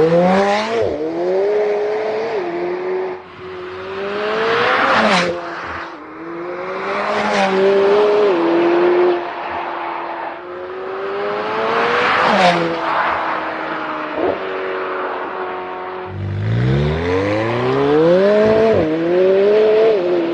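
McLaren 720S twin-turbo V8 accelerating hard through the gears in several runs, its pitch climbing and then dropping back at each upshift, with the car coming past loudly a few times.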